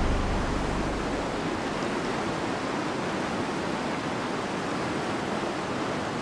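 Swollen, muddy river in flood rushing over boulders: steady, even rushing of fast water. A low musical drone fades out in the first second.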